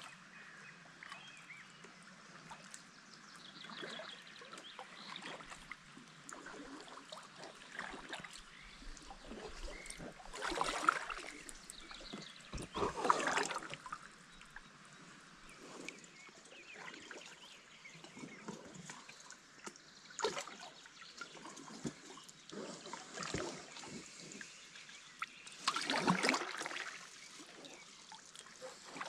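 Double-bladed paddle dipping and pulling through calm water beside a packraft, with irregular splashes and drips trickling off the blades. The strongest strokes come about eleven, thirteen and twenty-six seconds in.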